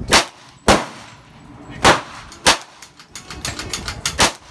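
Five loud gunshots at uneven intervals at an indoor range. A quick run of lighter clicks and knocks comes just before the last shot.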